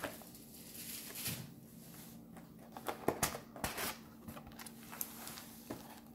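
Trading-card packs and their box being handled: soft rustling with scattered light taps and clicks.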